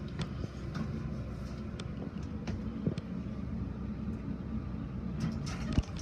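Elevator car travelling between floors: a steady low hum and rumble, with a few light clicks and a thump near the end.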